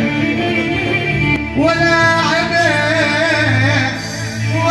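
A man singing an Arabic folk melody solo into a handheld microphone, with long, ornamented held notes and a brief break for breath about a second and a half in.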